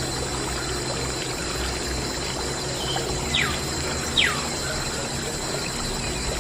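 Water pouring and trickling steadily from a small model water pump, over a low steady hum. Two short falling bird chirps come a little past the middle.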